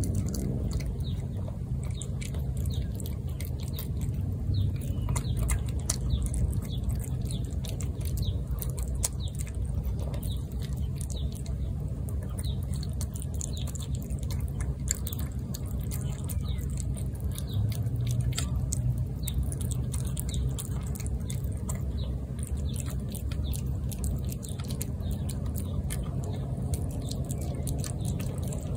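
Tabby cat eating wet food from a plate, with many quick small clicks and smacks of chewing throughout, over a low steady rumble.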